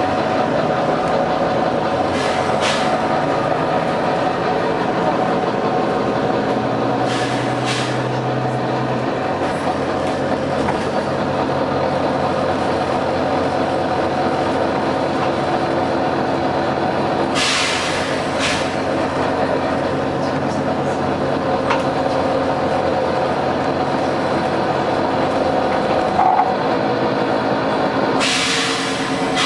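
Volvo B9TL double-decker bus running, its six-cylinder diesel humming steadily. Compressed air from the bus's pneumatic system hisses in short bursts several times, the longest near the end.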